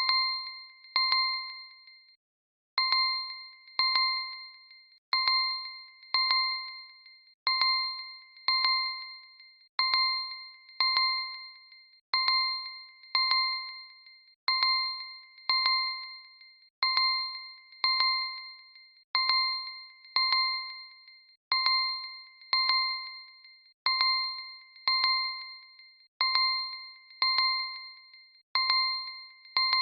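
Redmi Note 11 phone's timer alarm going off, starting suddenly: a bell-like ding struck twice in quick succession, the pair repeating about every two and a half seconds.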